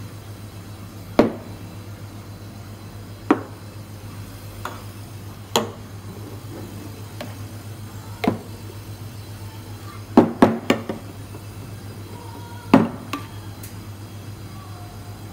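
Stainless steel milk pitchers and coffee cups knocking and clinking on a counter as they are handled and set down: single sharp knocks a couple of seconds apart, with a quick run of three or four about two-thirds of the way through, over a steady low hum.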